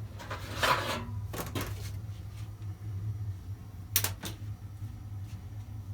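A steady low hum with a few short knocks and clatters, as of hard parts being handled, clustered near the start and two sharp clicks about four seconds in.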